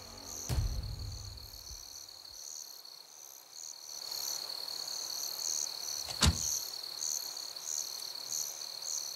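Night insects chirping: a steady high trill under an evenly pulsing chorus of higher chirps. A single sharp knock sounds about six seconds in, and low background music fades out in the first two seconds.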